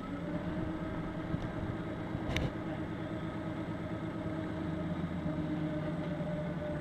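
Damper test rig's shaker plate running under a TVR's front wheel, a steady mechanical hum as it shakes the suspension to test the damper. One sharp click about two and a half seconds in.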